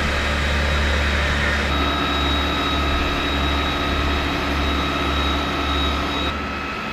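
A heavy engine running steadily: a deep rumble with a steady whine over it. The pitch of the whine shifts about two seconds in, and the sound drops a little near the end.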